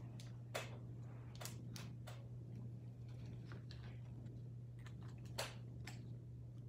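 Close-up mouth sounds of someone chewing food: a handful of short, soft clicks and smacks spread over several seconds, over a steady low hum.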